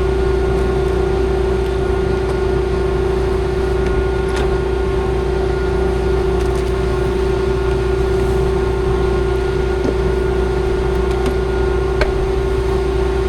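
A combine harvester running steadily, heard from inside the cab: a constant drone with a strong steady hum and one brief tick near the end.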